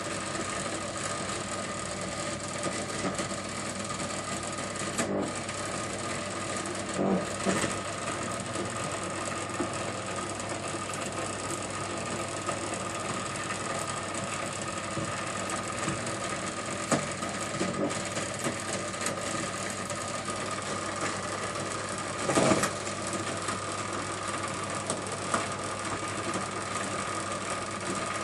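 Washing machine running with a steady whining tone over a fast mechanical rattle, and a couple of louder knocks; the owner takes the noise for a sign that the machine needs servicing.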